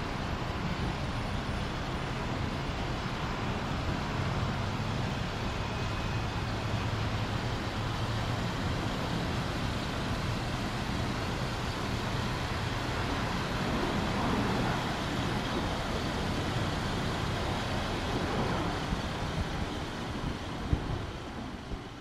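Jet airliner engines running: a steady rush with a low hum that fades about halfway through.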